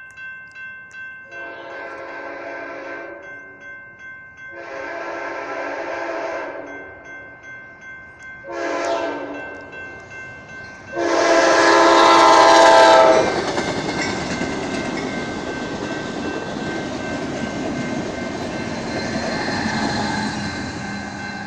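Amtrak Cascades Siemens Charger locomotive sounding its horn in the grade-crossing pattern, two long blasts, one short and a final long one, the last the loudest, as it approaches a crossing. A crossing bell rings with a steady, regular ding underneath. Then the locomotive and its Talgo trainset rush past over the rails.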